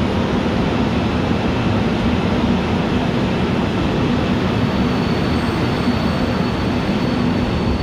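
Seoul Subway Line 1 electric train pulling out of the station, heard from the platform behind the platform screen doors: a steady rumble of the cars running along the track. A thin high whine joins about five seconds in.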